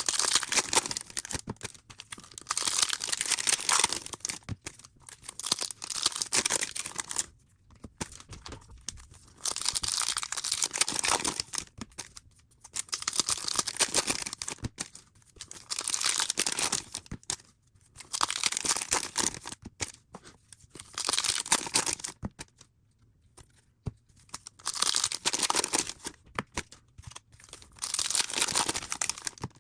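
Trading card pack wrappers being torn open and crinkled, in repeated bursts of tearing a few seconds apart, one pack after another.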